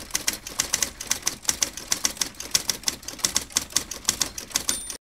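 Typewriter keys clacking in a quick, uneven run of several strikes a second. Near the end there is a short, high ring, and then the typing stops abruptly.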